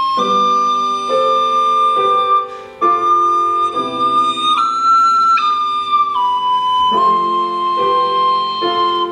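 Soprano recorder playing a melody of long held notes, changing pitch about every second, over grand piano chords. The sound dips briefly near three seconds in.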